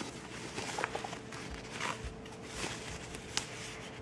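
Soft rustling and scraping of a laptop's white non-woven fabric sleeve being handled against a cardboard box, with one sharp tick about three and a half seconds in.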